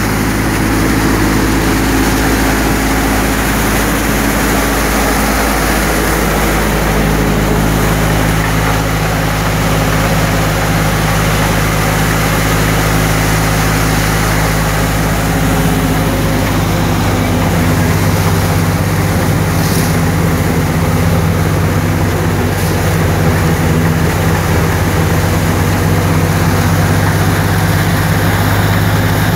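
Multi-crop thresher running steadily, its belt and chain drives and threshing drum turning with a loud, steady mechanical drone and low hum while dry crop plants are fed in.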